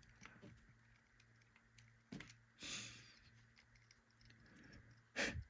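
Near silence with a few faint clicks of small metal lock parts being handled as a lock core is worked loose, a soft breath about midway, and a low steady hum underneath.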